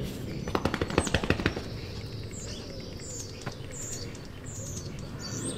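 A rapid run of about a dozen sharp clicks or knocks lasting about a second, then small birds chirping with short, repeated high calls.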